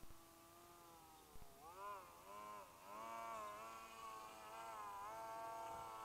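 Electric motor and propeller of a small RC flying wing whining in flight, faint. Its pitch swoops up and down several times about two seconds in, then holds steady.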